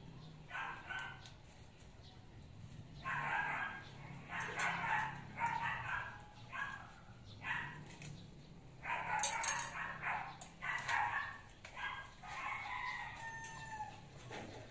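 Dogs barking repeatedly, with a longer falling call near the end like a rooster crowing, over a faint steady low hum.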